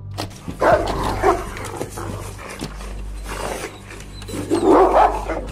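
Dogs fighting, with rough bursts of dog noise about a second in and again near the end, over a steady low hum.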